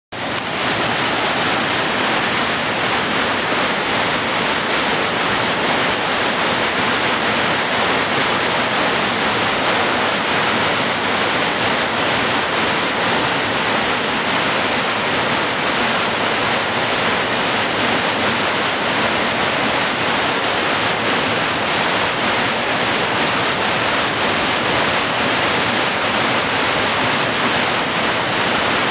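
Waterfall: a steady loud rush of falling water, unbroken throughout.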